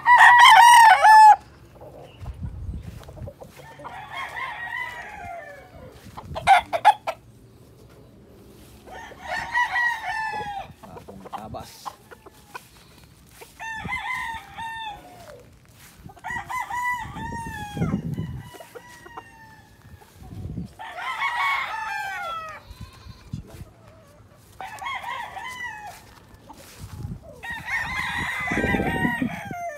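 Gamefowl roosters crowing one after another, about eight crows from several birds around the yard. The first crow is much closer and louder than the rest.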